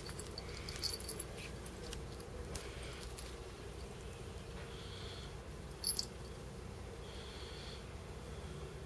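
Quiet outdoor background with a steady low hum, a few short faint high chirps and scattered small clicks.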